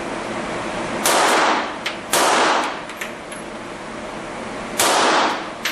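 Three pistol shots, about a second apart and then nearly three seconds apart, each ringing out in a short echo, with a few fainter sharp cracks between them.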